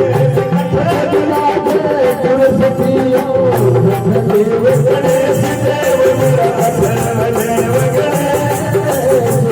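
Folk-style Hindu devotional bhajan music: a wavering melody line held over a steady beat of drums and hand percussion.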